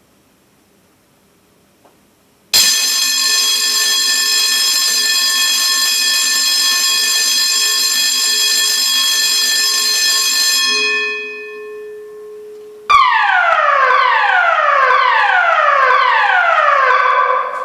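Building fire alarm evacuation tones. After a short quiet spell, a steady alarm tone sounds for about eight seconds and dies away. Then a tone falls from high to low about once a second, five times: the German standard evacuation signal.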